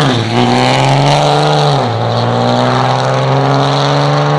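Cummins turbo-diesel inline-six in a Dodge Ram pickup at full throttle on a drag-strip pass. The engine note drops as it shifts up right at the start and again about two seconds in, climbing in pitch between and after the shifts.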